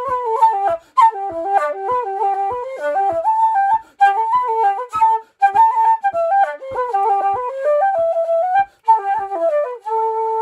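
Patrick Olwell wooden D flute playing a fast Irish reel: quick runs of notes broken by short breath gaps, with a soft low thump about twice a second on the beat. Near the end it settles onto a long held final note.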